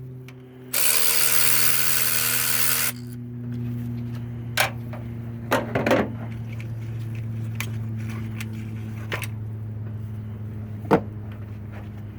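A power tool runs for about two seconds near the start as the number 3 spark plug is being taken out. Several sharp metallic clicks and clinks of tools follow, over a steady low hum.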